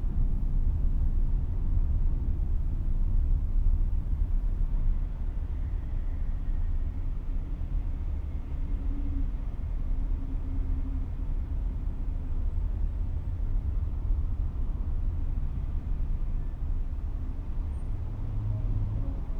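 Car being driven in traffic: a steady low rumble of engine and road noise.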